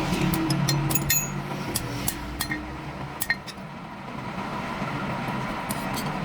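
Scattered light metallic clinks and taps, a few ringing briefly, over a steady low hum.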